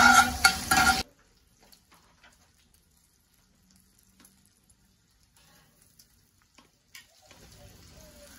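Bacon sizzling in a cast-iron skillet as a hand stirs it with a utensil, loud for about the first second. It then cuts off suddenly to near silence with a few faint crackles, and a faint sizzle returns near the end.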